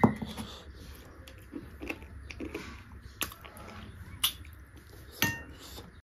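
Mukbang eating sounds: close-up chewing and biting on beef curry, with a few sharp clinks of a utensil or dish, the last with a brief ring. The sound cuts off just before the end.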